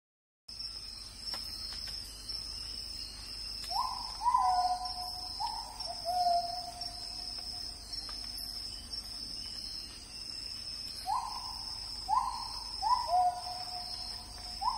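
A bird calling in two runs of about four whistled notes, each note dropping in pitch, about four seconds in and again about eleven seconds in. Under it, insects keep up a steady high trill.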